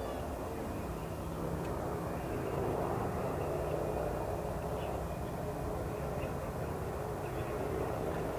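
Jet airliner engines running steadily: a broad, continuous rumble with faint steady whining tones, slowly growing louder.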